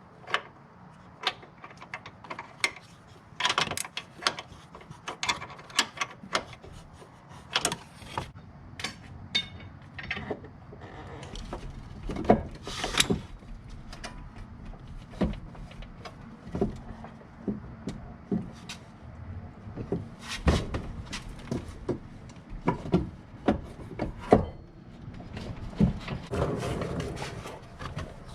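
Irregular clicks, knocks and scrapes of hand tools and metal parts being handled, with no steady engine or motor sound.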